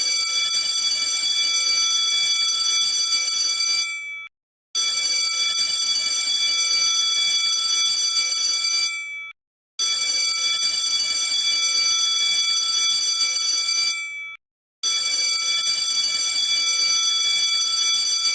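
Electric bell ringing in long rings of about four and a half seconds, each dying away briefly when it stops, with short pauses of about half a second between rings. Four rings in all.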